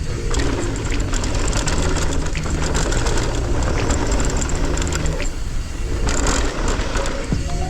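Background music: a bass line stepping between held notes, with fast ticking on top.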